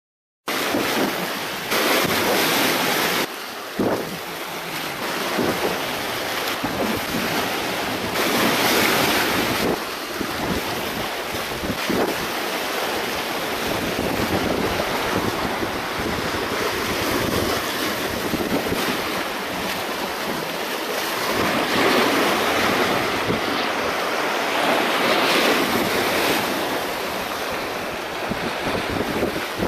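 Sea waves washing and splashing against shoreline rocks, swelling and easing every few seconds, with wind buffeting the microphone.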